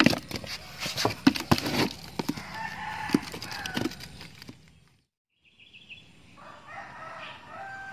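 Freshly caught fish flapping in a plastic basin, a quick run of sharp slaps and knocks against the plastic. A rooster crows in the background. The sound cuts out briefly, and a rooster crows again.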